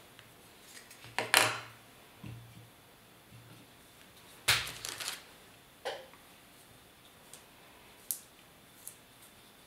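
Wooden-handled brush and spatula being handled and set down on a hard work board: a few sharp clicks and knocks, the loudest about a second in and again about four and a half seconds in, with fainter taps later.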